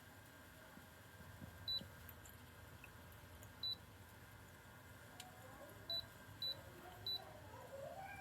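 Five short, high electronic beeps, spaced irregularly and the last three close together, typical of a humidifier's control-panel buttons being pressed. Beneath them is a faint steady hum.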